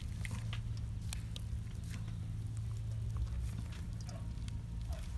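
Soft wet squishing and scraping of a chili-paste-coated scad being forced by gloved hands into a bamboo tube it barely fits, with scattered small clicks. A steady low hum runs underneath.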